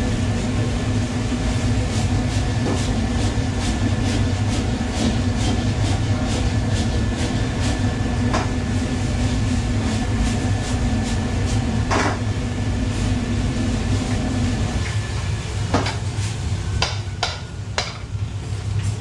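Metal utensil striking and scraping a wok in a quick regular rhythm, about three knocks a second, over the steady roar of a gas wok burner and kitchen extractor hood. The low hum drops out about three-quarters of the way through, leaving a few louder clanks against the wok.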